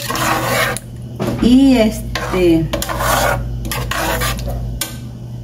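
Metal spoon stirring and scraping against the sides of an aluminium pot of tomato and chile sauce with fideo noodles.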